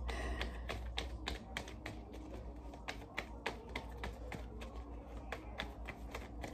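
A tarot deck being shuffled by hand: the cards click and snap against each other in a quick, uneven run of sharp clicks, several a second.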